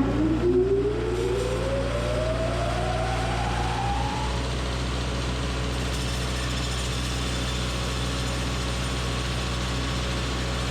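Sawmill machinery running: a steady engine drone under a whine that rises smoothly in pitch over the first four seconds or so as the saw spins up, then settles into steady running.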